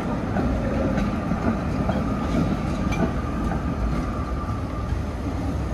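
Tatra T3 tram rolling across a junction on steel rails: a steady low rumble with a few sharp clicks as the wheels cross rail joints and points, and a thin steady whine that fades out in the second half.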